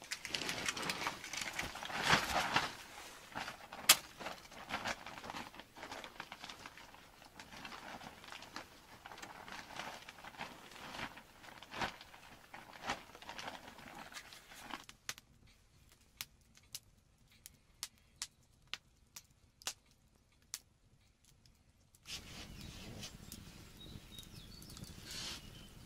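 Rustling and knocking of hands working over a fire pit of split kindling on a straw floor as the fire is lit and tended, with a few loud sharp knocks. Then sharp, separate crackles and pops of burning wood over near quiet, and near the end a steady low rushing sound under the fire.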